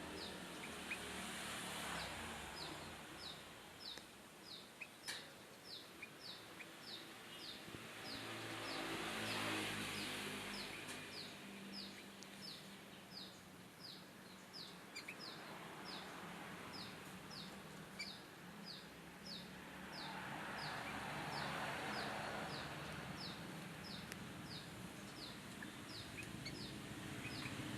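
Sooty-headed bulbul (kutilang) repeating one short, high, falling chirp about twice a second, over a background rush of noise that swells twice.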